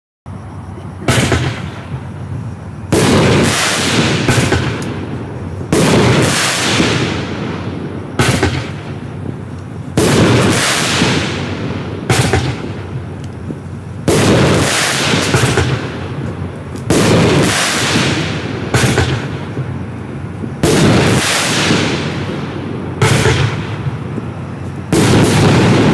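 Black Cat Drift King consumer fireworks cake firing its shots one after another, about every two seconds. Each shot is a sharp bang followed by a noisy hiss that fades over a second or two.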